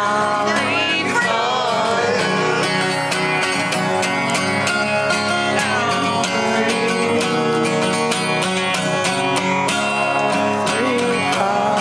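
Acoustic guitar strummed steadily while a man sings a country-style song; the singing comes through near the start and again near the end.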